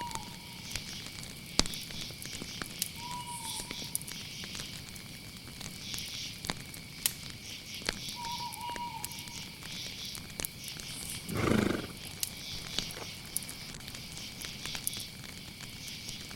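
Night ambience: crickets chirring steadily under a pulsing insect chorus, with sharp crackling pops from a wood fire. A night bird gives a short whistled note three times, a few seconds apart, and a single louder animal call sounds about eleven seconds in.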